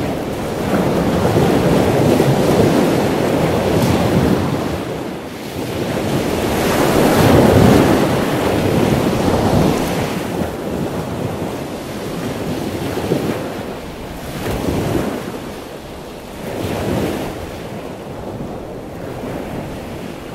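Ocean surf: a steady rushing of waves that swells and fades several times, loudest about two and seven seconds in.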